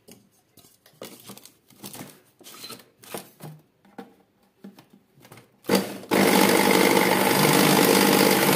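Small clicks and knocks as the grinding cup is handled on an electric food processor. About six seconds in, the processor's grinder attachment starts with a short burst, then runs loudly and steadily, grinding dried milk into powder.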